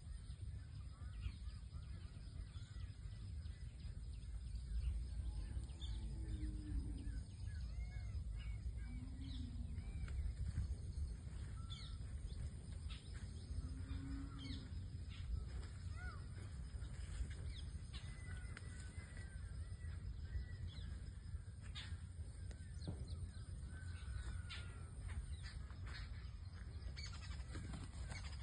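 Scattered short calls and chirps of birds, over a steady rumble of wind on the microphone.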